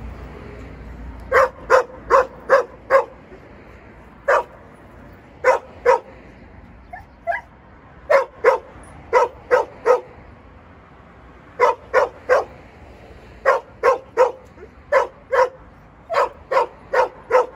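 A dog barking in quick runs of two to five short, sharp barks, with pauses of about a second between runs.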